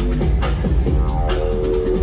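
Loud electronic dance music with a heavy bass line and a steady beat.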